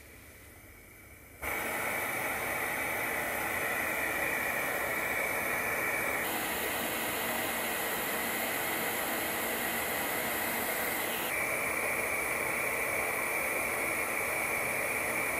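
Portable gas stove burner fitted with a radiant heater mesh, hissing steadily. The hiss starts abruptly about a second and a half in, as the gas is turned up and the mesh heats to a glow, and its tone shifts slightly twice.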